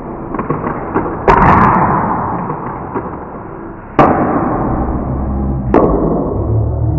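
Handheld confetti party popper going off: a sudden loud bang about a second in, another about four seconds in and a smaller crack near six seconds, each trailing off over a muffled low rumble.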